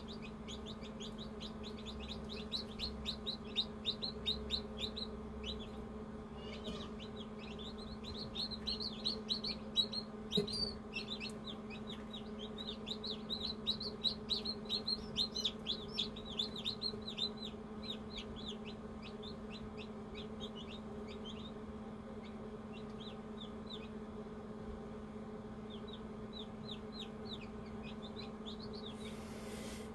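Newly hatched chicks peeping: runs of quick, high, falling cheeps, several a second, busiest around the middle, over a steady low hum.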